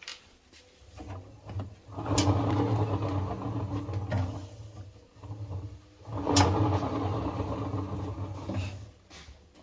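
A motor-driven machine runs in two bursts of about three seconds each, the second starting about four seconds after the first. Each burst begins with a sharp click and holds a steady, low, humming pitch.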